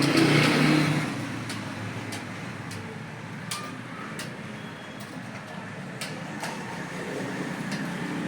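Computer keyboard keys being struck during a typing test: an uneven run of sharp clicks over a steady background hum, with a louder rush of noise in the first second.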